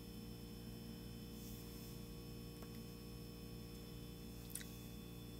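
Quiet room tone: a steady low hum, with one faint tick about four and a half seconds in.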